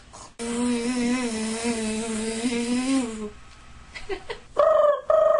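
A young woman's voice imitating a Pokémon cry: a steady buzzing hum, held for about three seconds, then short higher vocal calls near the end.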